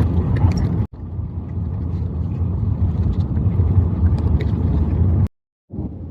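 Vehicle driving along a road: a steady low rumble of engine and tyre noise, broken twice by abrupt silent cuts, once about a second in and again near the end.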